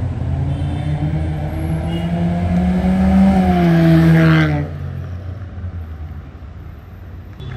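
Hyundai i20's 1.2-litre petrol engine through a custom valvetronic exhaust as the car accelerates past: the exhaust note rises to its loudest about three to four seconds in, then drops in pitch and fades as the car drives away.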